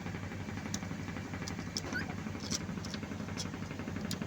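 A steady low hum runs throughout, with a few short, sharp, high squeaks from the black-capped lory scattered through it.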